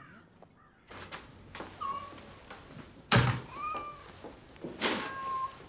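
A house cat meows several times in short calls. A door shuts with a thud about three seconds in, the loudest sound.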